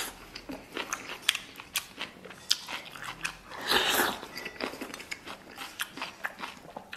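Close-up mouth sounds of eating rice and bok choy: chewing and smacking with many short clicks, and a louder burst about four seconds in as rice is shovelled from a steel bowl into the mouth with chopsticks.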